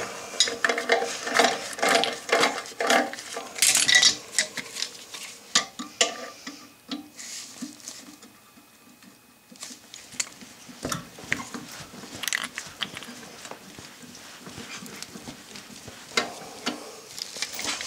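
Irregular light metallic clinks and taps of hand tools against metal toilet hardware. They are busiest in the first seven seconds, then a quiet spell of two or three seconds comes before scattered clinks resume.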